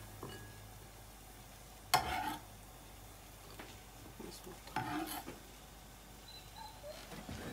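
Chopped onion scraped off a metal kitchen knife into a ceramic bowl, with two short knocks of the blade against the bowl, about two seconds in and again about five seconds in.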